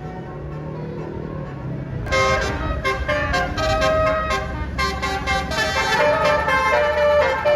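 A bus's diesel engine rumbles as it comes near. About two seconds in, a Basuri telolet multi-tone horn starts up over it and plays a quick tune of rapidly changing notes.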